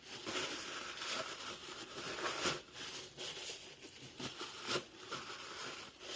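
Hands handling the small gears and parts of an e-bike mid-drive motor being reassembled: continuous rustling with a few small sharp clicks, loudest about two and a half seconds in and again near the five-second mark.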